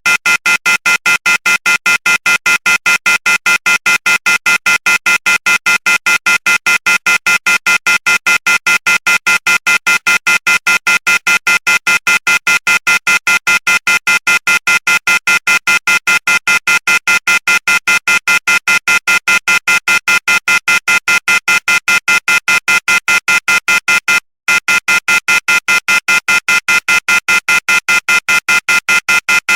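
Electronic phone tone, a high-pitched beeping that pulses rapidly and evenly at about four beeps a second, with a single brief gap near the end.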